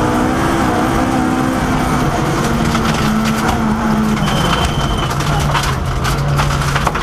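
Ford Escort Mk II rally car's engine from inside the cabin on a gravel stage, its revs held high and then dropping about four seconds in before holding lower. Sharp clicks and crackles come in over the last couple of seconds.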